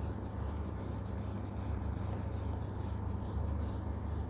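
Rubber inflation bulb of a manual blood pressure machine being squeezed over and over, about two and a half pumps a second, each pump a short hiss of air, as the arm cuff is pumped up before the stethoscope reading. A steady low hum runs underneath.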